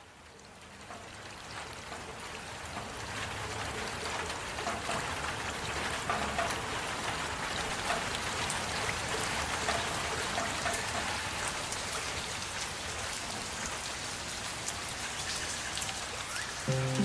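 Heavy rain fading in over the first few seconds, then falling steadily: a dense hiss with scattered sharp drop ticks. Near the end a few sustained low notes come in.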